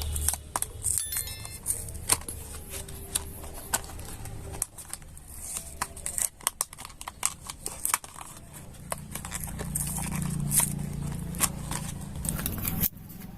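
Plastic packaging being cut and pried open with a blade: irregular crackles, clicks and scrapes of stiff plastic, over a low background hum.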